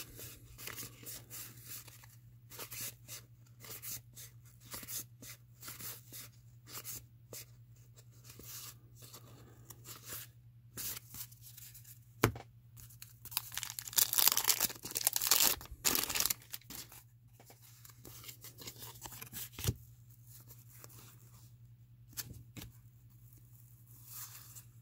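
Baseball cards handled with scattered short clicks. About fourteen seconds in, a wax-paper pack of 1987 Fleer cards is torn open, giving a few seconds of loud tearing and crinkling.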